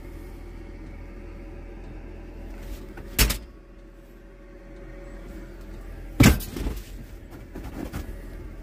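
Truck air-ride seat being handled: two sharp clunks about three seconds apart, the second followed by a few lighter knocks, over a steady low hum.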